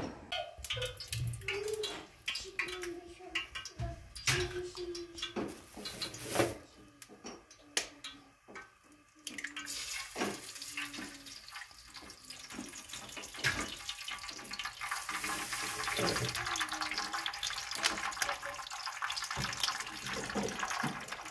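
Eggs frying in hot oil in a pan: a steady sizzle that starts suddenly about nine seconds in and keeps on. Before it come scattered clinks and knocks of pan and utensils.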